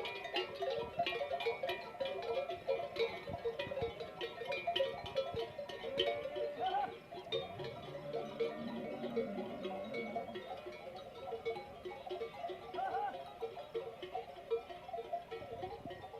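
Bells worn by a herd of camels ringing and clanking in a dense, uneven jangle as the animals move, with a few short livestock calls about six and thirteen seconds in.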